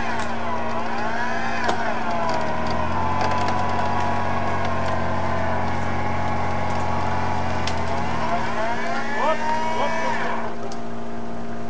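Toyota Land Cruiser 70-series engine revving under load as the truck crawls over rough ground. The pitch dips and rises, holds steady through the middle, then climbs again near the end before dropping off. A few sharp clicks are heard along the way.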